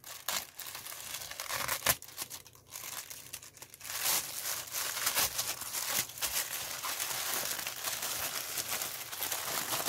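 A thin black plastic mailing bag crinkling and rustling as it is cut and torn open by hand. The crinkling gets louder and denser from about four seconds in.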